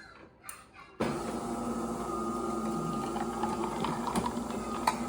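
A steady machine hum with a few fixed tones that starts abruptly about a second in and runs on evenly.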